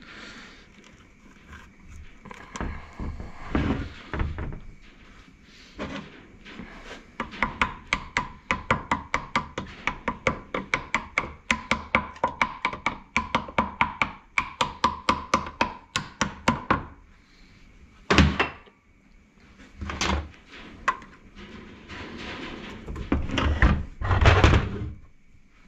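Quick, even metal-on-metal taps, about four a second for some ten seconds, each with a short ring, as a rebuilt bearing is knocked into its seat in a Tofaş gearbox. A few single knocks and some rougher handling noise follow near the end.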